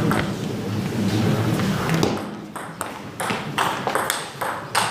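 Table tennis rally: the ball ticking sharply off the bats and table, a quick run of hits starting about two seconds in, over a low crowd murmur that drops away as the point begins.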